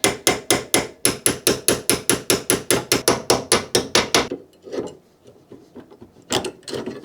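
Hammer tapping rapidly on a part of a Saab 900 brake caliper to knock it loose, about six quick even blows a second for some four seconds. A few softer knocks follow, then a short clatter of metal near the end.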